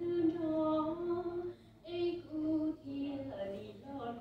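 A woman singing a Hmong song, holding long notes with brief pauses for breath between phrases.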